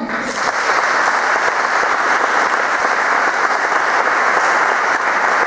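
An audience applauding: a dense, steady round of clapping that starts suddenly.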